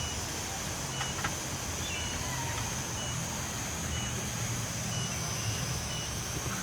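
A short high electronic beep repeating about once a second, over a steady low hum and a constant high hiss.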